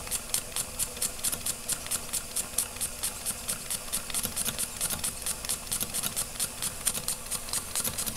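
Weeden No. 14 toy steam engine running steadily on its original burner: a fast, even ticking of about six beats a second.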